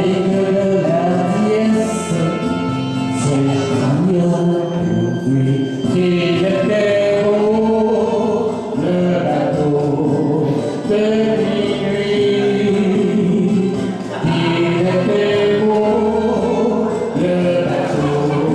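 A man singing a French-language song into a microphone over a karaoke backing track.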